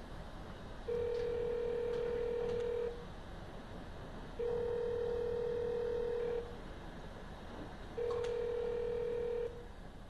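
Mobile phone on speaker playing the ringback tone of an outgoing call: a steady low single-pitch tone sounds three times, each about two seconds long with pauses of about a second and a half. The third tone stops short as the call is answered.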